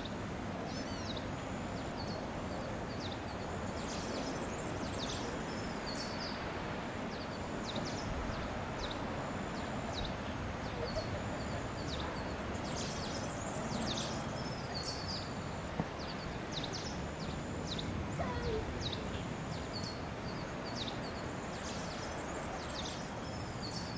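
Steady outdoor background noise, with high, thin chirping calls repeating throughout.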